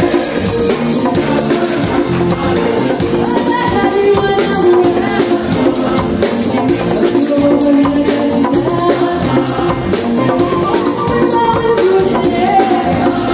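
Gnawa-style music: a woman singing while playing a guembri, joined by a polyphonic choir, over a fast, steady rattling percussion beat.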